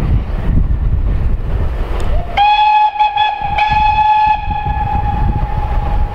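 GER Y14 0-6-0 steam locomotive No. 564 sounding its whistle: one long blast starting about two seconds in, sliding up briefly to a steady pitch, then fading away near the end. Wind rumbles on the microphone throughout.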